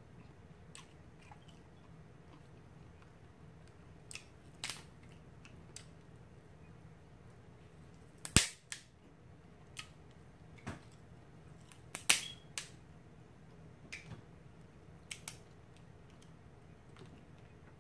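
Boiled crab leg shells cracking and snapping as they are broken apart by hand: a scattered series of sharp cracks, the loudest about eight seconds in and another about twelve seconds in.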